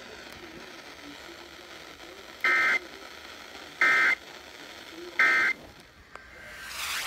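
Three short bursts of the SAME digital data code, a shrill buzzy warble repeated evenly about a second apart over a steady radio hiss. This is the end-of-message signal that closes an emergency alert broadcast. A rising hiss of static follows near the end.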